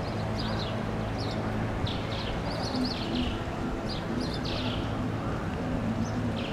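Garden birds chirping in short, repeated calls, over a steady low hum.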